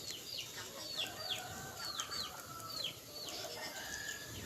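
Small birds chirping: a steady run of short, high chirps, each falling in pitch, about two to three a second.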